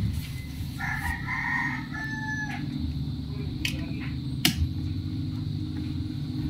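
A rooster crowing once, about a second in, for under two seconds, over a steady low hum. Two sharp clicks follow midway, the second the loudest, as the plastic outlet is handled.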